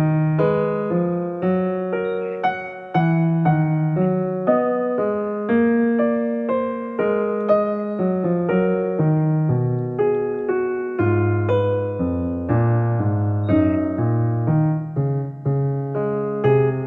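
Soft background music: a piano-like keyboard plays a slow melody of notes that strike and fade, over low bass notes.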